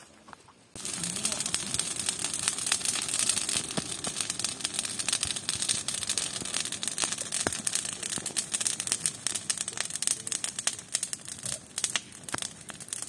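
Bonfire of leafy green branches burning hard: dense crackling and popping over a high hiss. It starts suddenly about a second in.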